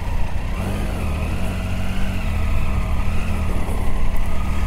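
Adventure motorcycle engine running at low revs as the bike pulls away slowly onto a gravel track, a steady hum that wavers slightly and grows a little louder.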